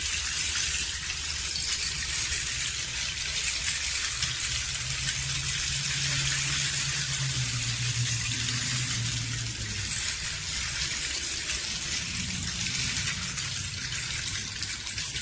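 Meinl RS1BK-XXL 60-inch bamboo rain stick held at about 45 degrees and turned slowly, its fill trickling down in a steady, even rain-like hiss at a pretty good rain pace.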